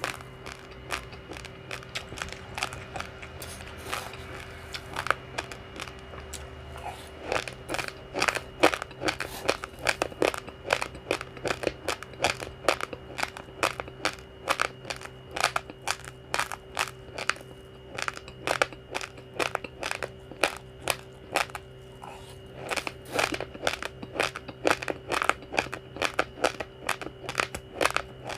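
Uncooked rice grains being crunched between the teeth, close to the microphone: a rapid, irregular run of sharp cracks, several a second, over a faint steady hum.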